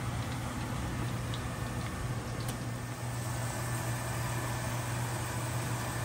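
Steady kitchen noise: a constant low hum under an even hiss, with a few faint clicks.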